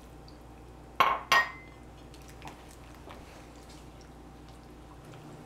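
Two sharp, ringing clinks against a mixing bowl about a second in, a third of a second apart, over faint sounds of hot water being poured into a molasses mixture and stirred with a spatula.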